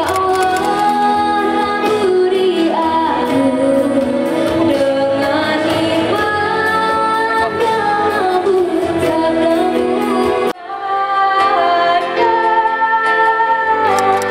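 A woman singing a pop-style song into a microphone over backing music. About ten and a half seconds in the sound cuts off abruptly and another woman's singing with backing music picks up.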